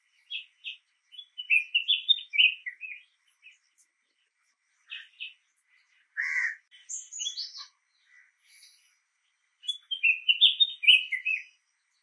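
Red-whiskered bulbul chirping, a string of quick whistled notes. It gives three bursts: one near the start, one about six seconds in with a high falling whistle, and one near the end.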